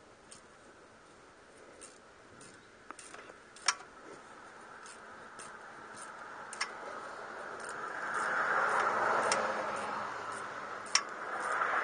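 Ratcheting wrench turning an oil pan bolt: scattered sharp metal clicks and taps, then two stretches of faster, denser ratchet clicking in the second half.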